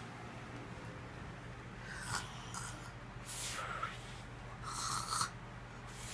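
A sleeper snoring: three short, noisy, snorting snores about a second and a half apart, starting about two seconds in.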